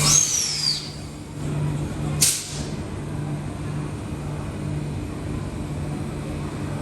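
Electric passenger train standing at the platform, releasing compressed air: a loud hiss with a falling whistle right at the start, then a second short burst of air about two seconds in, over the train's steady low hum.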